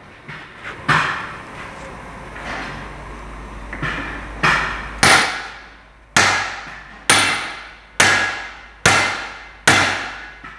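Hammer blows on a heavy truck driveshaft's universal-joint yoke, knocking the worn cross's bearing cups out. There is one blow about a second in, then from about halfway a steady run of ringing metal strikes, roughly one a second.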